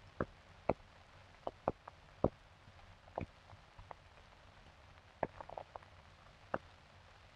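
Irregular sharp clicks and pops over a steady hiss and low hum: surface noise from the worn optical soundtrack of an old 16 mm film.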